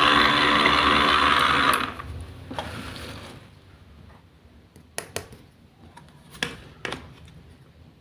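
A small electric motor running with a steady whirr, which cuts off about two seconds in. A few light clicks and taps follow near the middle.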